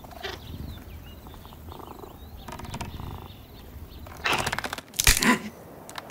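Quiet outdoor ambience with faint chirping, broken by two loud rough bursts about four and five seconds in, the second the louder.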